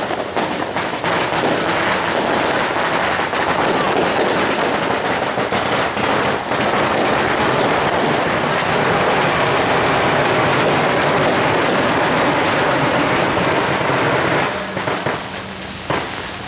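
A long string of firecrackers going off in a dense, continuous crackle, cutting off abruptly about 14 seconds in.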